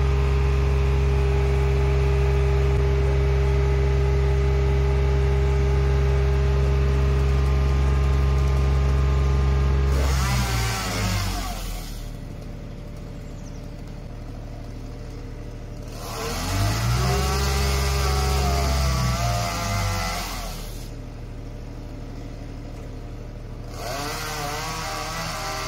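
Truck engine of a boom lift running at raised revs to drive the hydraulic boom, then the revs fall away about ten seconds in. The revs rise again briefly with a hiss a few seconds later and drop back, and there is another louder spell near the end.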